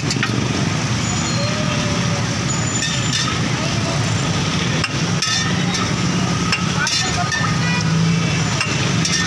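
Steady din of a busy street-food stall: a constant low rumble of traffic and engines with background chatter. Through it come a few short clinks and scrapes of metal utensils on the flat steel griddle, and a faint sizzle.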